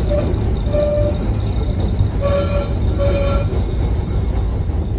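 Vintage electric trolley car running on its track, heard from inside the car: a heavy low rumble of wheels and running gear. Four short, steady squeals from the wheels on the rails come at roughly one-second intervals in the first half.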